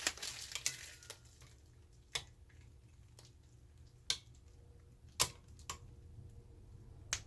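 Scattered light clicks and knocks, about eight of them a second or so apart, from handling a wire soap cutter while a bar of soap is pushed through its wires.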